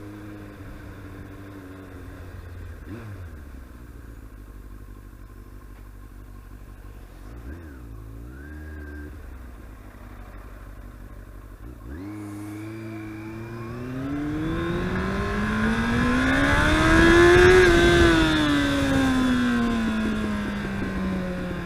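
Yamaha R1's inline-four engine running at low revs with a steady note, then about twelve seconds in it is opened up and revs hard, rising in pitch to a loud peak a few seconds before the end before falling away as the throttle closes. The rider has reported a misfire on this bike, yet it pulls strongly.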